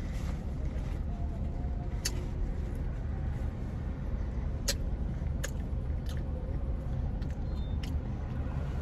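Steady low rumble of a car idling, heard from inside the cabin, with a few short sharp clicks scattered through it.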